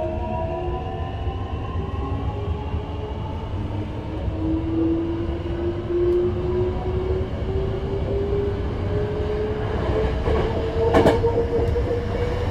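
Hankyu 9000 series electric train heard from inside the car as it accelerates, its Toshiba IGBT-VVVF inverter and traction motors giving a whine that rises slowly in pitch over the low running rumble. A brief clatter of knocks comes about eleven seconds in.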